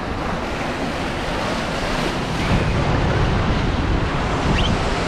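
Turbulent water rushing and churning through a river rapids ride channel around a round raft boat, a steady wash of noise. Wind buffets the microphone, adding a low rumble.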